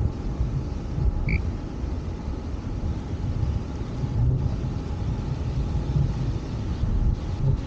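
Wind rumbling on the microphone of a camera moving along a road at riding speed, mixed with low road and tyre noise.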